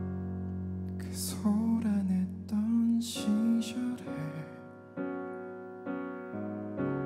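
Live band playing a slow ballad, carried by sustained electric piano chords. A male voice sings one line from about a second in to about four seconds in.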